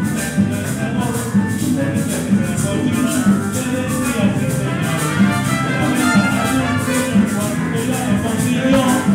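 Live band music: an ensemble playing, with a steady pulse of high rattling strokes over a repeating bass line.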